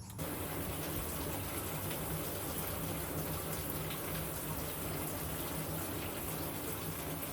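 Water running in a steady rush with a low hum underneath, switching on abruptly at the start.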